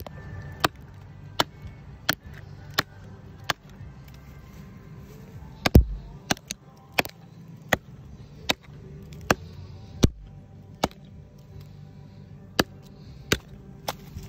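Hatchet chopping into the bark of a dead red oak: about nineteen sharp strokes, roughly one every 0.7 seconds, with two short pauses.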